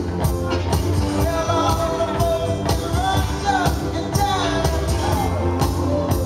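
DJ's dance music playing loud, a sung melody over a steady drum beat.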